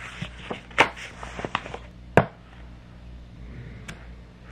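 A few sharp clicks and taps from a hand stamp and a paperback being handled as the stamp is pressed onto a page. The loudest click comes about two seconds in, with light page and handling rustle between.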